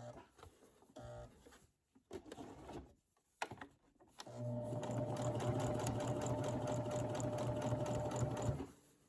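Sewing machine stitching in three short bursts, the small back stitch at the start of a seam, with a couple of clicks. It then runs steadily for about four seconds and stops near the end.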